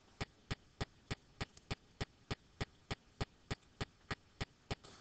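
Sharp, evenly spaced ticking, about three clicks a second, steady throughout over a quiet background.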